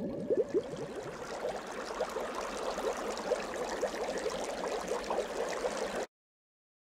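Bubbling water sound effect: a dense run of quick rising blips over a wash of water, cutting off suddenly about six seconds in.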